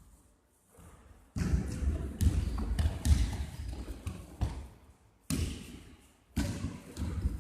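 Basketball game noise on a hall court: the ball bouncing and knocks of play, in loud stretches that start about a second and a half in and break off abruptly twice.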